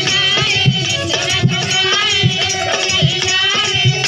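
Instrumental interlude of a Bhojpuri folk song: a wavering lead melody plays over a steady drum beat, with a jingling rattle or tambourine.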